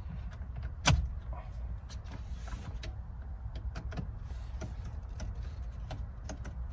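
Scattered clicks and taps of hand tools working at the steering wheel's airbag screws, with one sharp click about a second in, over a steady low rumble.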